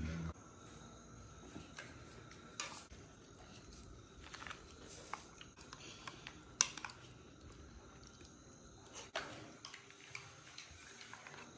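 Faint clinks and scrapes of spoons on plates as people eat, a handful of scattered sharp clicks over a quiet room background, the sharpest about six and a half seconds in.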